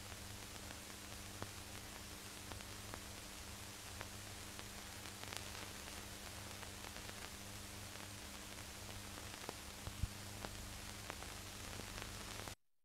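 Steady hiss and scattered crackles of an old film soundtrack over a low steady hum, with a sharper pop about ten seconds in; it cuts off suddenly near the end.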